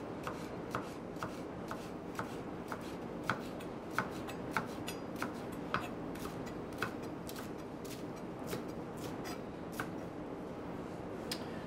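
Chef's knife slicing spring onions on a plastic chopping board: light, sharp knife strikes roughly two a second, unevenly spaced, over a steady background hiss.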